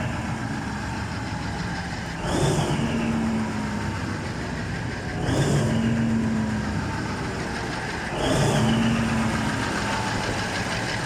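Cummins KTA50 16-cylinder turbocharged diesel engine running on test after a general overhaul. A steady drone swells about every three seconds, each swell carrying a brief whine that rises and then falls.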